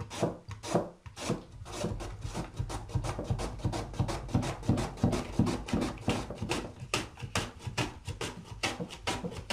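Carrot and then beetroot shredded by hand on a wooden-framed vegetable slicer with a metal blade: fast rhythmic rasping scrapes, about four to five strokes a second.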